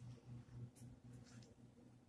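Faint rustle of wood-shavings packing as hands dig hatching eggs out of it, over a low hum that pulses about four times a second.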